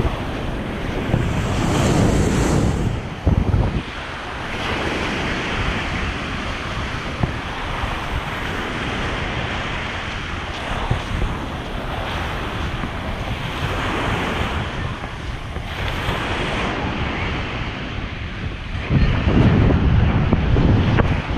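Small Lake Superior waves breaking and washing up a sandy beach, with wind buffeting the microphone in gusts, strongest about two seconds in and again near the end.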